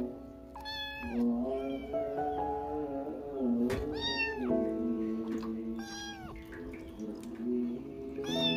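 A sick kitten meowing about five times, short high cries that rise and fall, while its face and eyes are wiped. Background music plays underneath.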